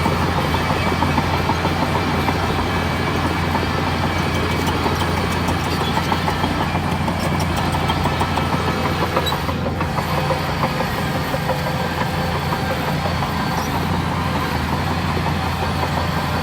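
Bulldozer's diesel engine running steadily, with a fast metallic clatter over the low engine hum.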